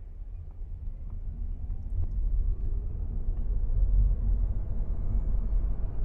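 Geely Geometry electric car pulling away and driving slowly: a low rumble that builds over the first couple of seconds and then holds steady, with a faint electric-motor whine rising in pitch as it speeds up.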